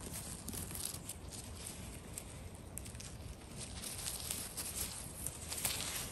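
Faint rustling with scattered small crackles and clicks from moss, leaves and twigs on a forest floor being disturbed while mushrooms are picked and handled.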